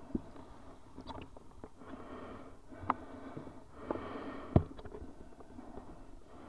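Muffled sloshing of shallow sea water around a camera held at the surface, with a handful of sharp knocks and clicks from handling it, the loudest about four and a half seconds in.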